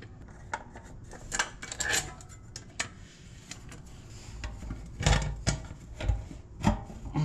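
Metal parts clinking, scraping and knocking as a part is worked back into place on a milling machine, with a run of louder knocks in the second half.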